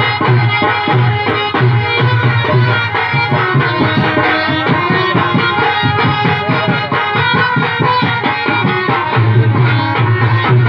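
Instrumental folk dance music led by tabla-style hand drums playing a quick, busy pattern over sustained melodic instruments, with a heavy pulsing low beat that drops out for a few seconds mid-way and returns near the end.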